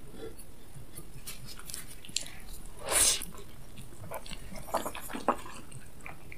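Eating sounds from a person biting into a sauce-dipped flour-tortilla burrito: one loud, noisy bite about three seconds in, then a few short wet clicks of chewing and lip smacks around five seconds.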